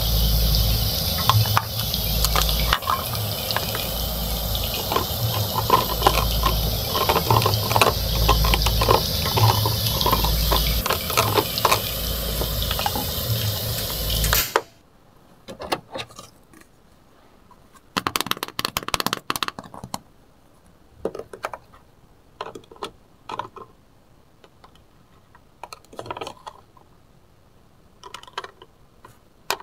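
Frying sizzle from a pan of fries on a miniature electric stove: a steady hiss with a rhythmic low pulse. It cuts off abruptly about halfway through as the stove is switched off. Afterwards come scattered light clicks and scrapes of a small fork and spatula against the pan and a plastic plate as the fries are lifted out.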